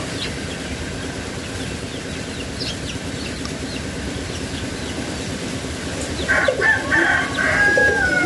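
A rooster crowing once, beginning about six seconds in: a call of about two seconds whose long held note slides slightly downward at the end, over a steady background hiss.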